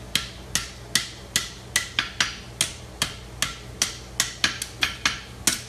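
Farrier's hammer striking a horseshoe on the anvil horn in steady, ringing blows about two to three a second, bending the toe of the shoe; a few blows come closer together near the end.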